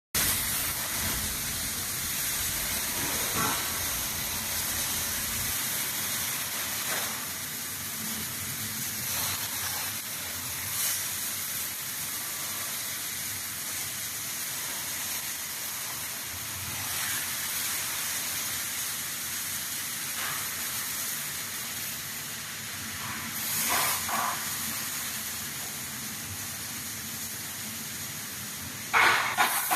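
Welding arc hissing steadily while a pallet truck frame is welded, with a burst of sharp crackling near the end.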